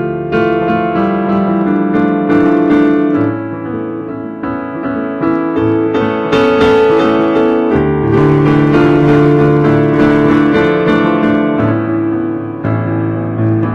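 Piano playing slow, sustained chords, with the bass note changing every few seconds.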